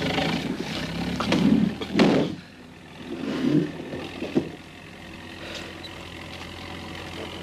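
An engine running, with clattering and several heavy thuds over the first two seconds or so, then settling into a steady drone.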